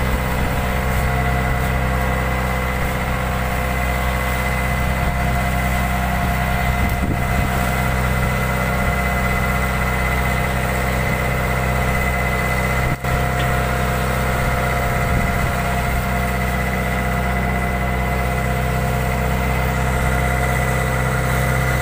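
Fishing boat's engine running steadily, a constant drone with a thin high whine on top.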